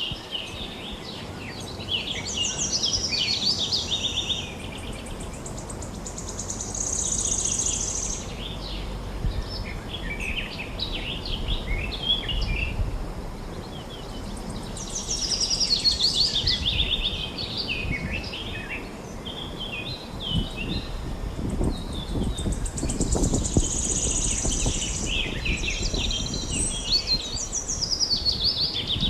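Several forest songbirds singing and chirping in overlapping bursts, over a steady low rushing background that swells at times.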